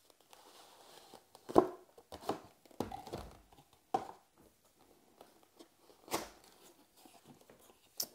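Cardboard packaging being handled: a printed sleeve slid off a product box and the flaps of a white cardboard box pulled open. It comes as a half-dozen short scrapes, rustles and taps, the loudest about one and a half seconds in.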